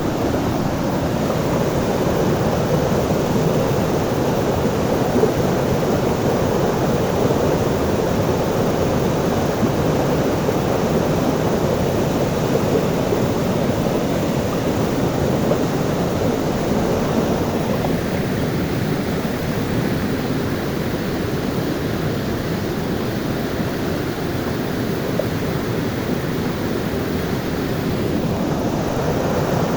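Waterfall: water rushing and splashing in a steady, full-bodied roar that is strongest in the low and middle range.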